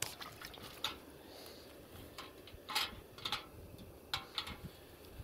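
Footsteps and movement through dry grass: scattered short rustles and light knocks, about six over a few seconds, with a low steady background.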